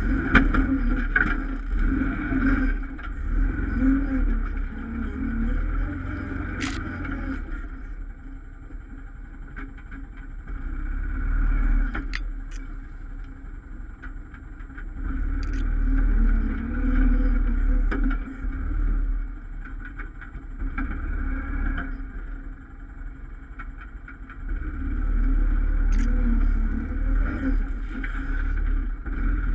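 ATV engine running under changing throttle, revving up and easing off in repeated surges, with a few sharp clicks along the way.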